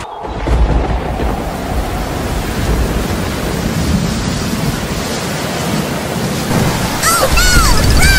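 A loud, steady rushing noise like rain or surf, with a few short sweeping whistle-like tones from about seven seconds in.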